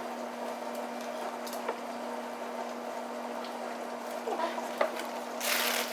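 Hot oil sizzling as breaded chicken strips deep-fry, over a steady hum, with a few light clicks and a louder burst of hiss near the end.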